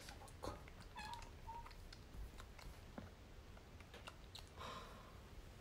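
Kitten suckling milk from a feeding bottle: faint, irregular small clicks and smacks of sucking on the rubber nipple, with a brief faint squeak about a second in.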